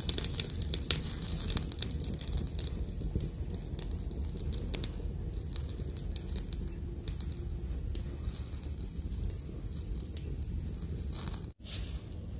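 Freshly lit fire of dry sticks in a mud stove crackling with sharp pops over a low rumble. The pops come thickest in the first couple of seconds, then more sparsely.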